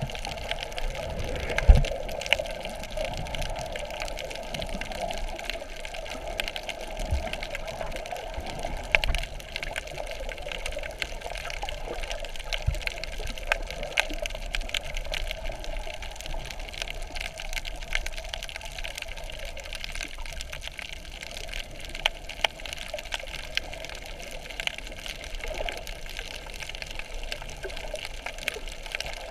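Underwater ambience over a shallow reef, heard through a camera's waterproof housing: a steady muffled hiss with many faint crackling clicks throughout, and a few dull low thumps, the strongest about two seconds in.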